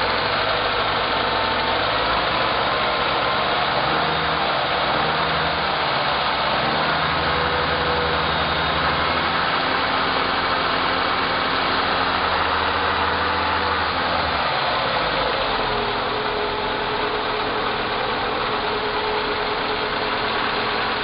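Renault Logan's engine running with the drive wheels turning in a middle gear, a steady drivetrain hum whose pitch drops slightly about three quarters of the way through. It is a test for a noise from the right front wheel, which the mechanic suspects comes from a worn wheel bearing, the CV joint or a gearbox bearing.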